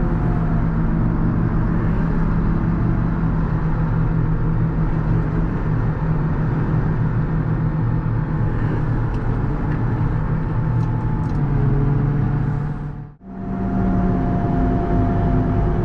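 JCB Fastrac 4220 tractor's diesel engine running at a steady pace as the tractor pushes a front snow plow along the road. Near the end the sound drops out for a moment and comes back with a slightly different tone.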